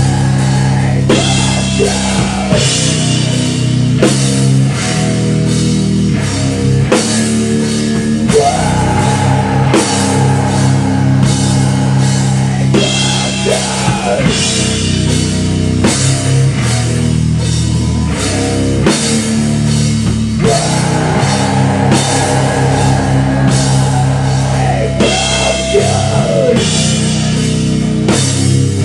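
Live rock band playing an instrumental passage: loud electric guitar with bent, sliding notes over a pounding drum kit, with steady drum hits throughout.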